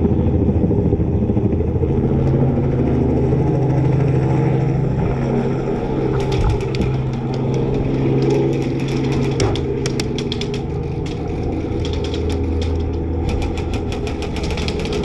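An engine running steadily, with rapid clusters of sharp snaps from airsoft guns firing from about six seconds in.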